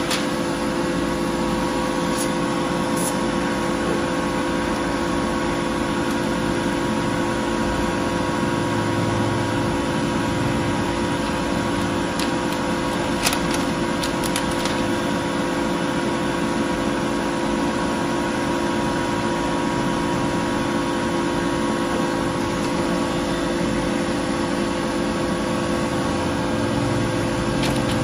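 Desktop laser cutting machine running with a steady, even hum holding several constant tones, with a few light clicks about thirteen to fifteen seconds in.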